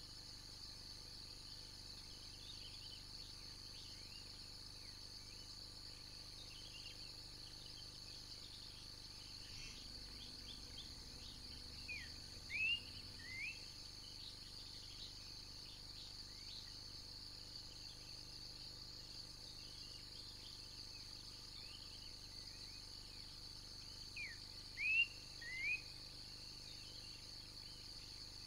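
Steady high-pitched drone of insects, with a bird calling a short phrase of three rising-and-falling notes twice, about twelve seconds apart.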